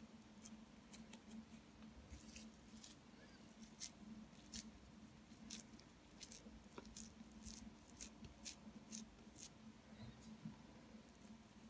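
Faint, irregular wet clicks and squishes of raw minced meat being pressed by hand into hollow aubergine rings, over a low steady hum.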